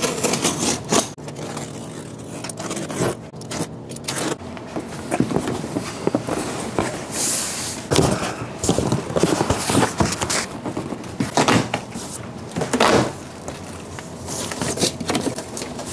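A large cardboard shipping box being opened: packing tape slit at the edges and the cardboard flaps pulled and folded back, with irregular scraping, rustling and a few sharp knocks.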